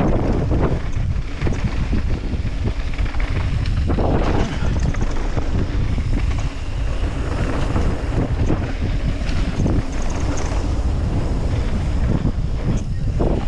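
Wind rushing over an action camera's microphone while riding a mountain bike downhill, over a steady low rumble with many short knocks and rattles from the bike over rough ground.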